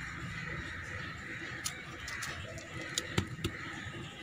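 Birds calling in the background, with a few light clicks.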